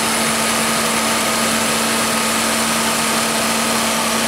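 Ford Taurus engine idling steadily with the air conditioning on. The freshly repaired A/C system, with new compressor, accumulator and orifice tube, is running as it is supposed to.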